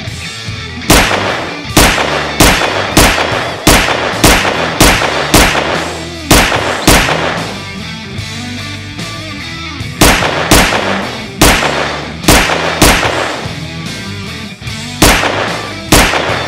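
Pistol gunshot sound effects laid over the video of a cardboard Glock 17 replica being aimed: sharp shots fired in irregular strings, about a dozen in the first seven seconds, then several more after a pause, each with a short fading tail. Rock music plays underneath.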